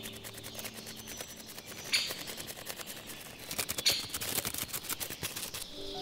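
Butterfly wings fluttering: a rapid, dry train of clicks, with two louder flurries about two and four seconds in. The clicks stop just before the end.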